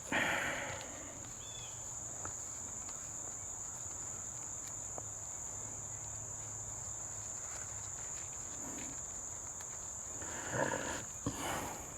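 Steady high-pitched insect chorus of crickets or katydids, a constant unbroken buzz, with brief rustling of gear just at the start and again near the end.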